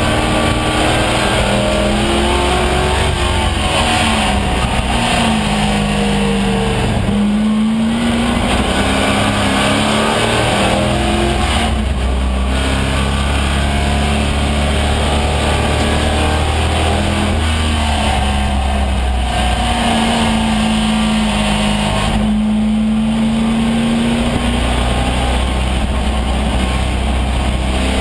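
AMC Javelin AMX race car's engine at racing speed, heard from inside the cabin, its pitch rising and falling with throttle and gear changes and dropping briefly a few times. Road and wind noise run under it.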